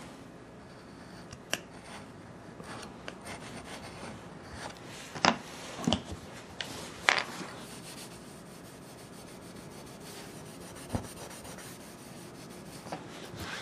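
Hand tools scraping and rubbing on a wooden floor surface during repair work, in short irregular strokes. The strongest scrapes come around the middle, and there is a single knock near the end.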